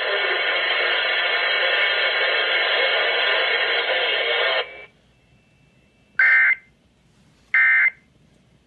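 Loud steady hiss from the relayed alert audio, cutting off suddenly almost five seconds in. Then two short buzzy bursts of Emergency Alert System end-of-message data tones, about a second and a half apart.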